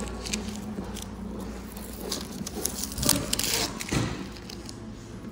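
A steady low hum with scattered sharp clicks and knocks, a few of them louder, around the middle of the stretch.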